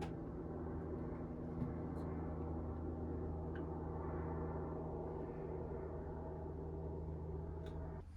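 Washing machine running with a steady low hum over a rushing noise, which stops abruptly about eight seconds in.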